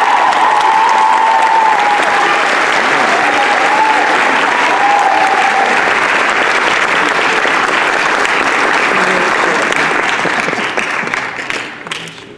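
Audience applauding, steady for about ten seconds and then dying away near the end, with a wavering high tone over the first half.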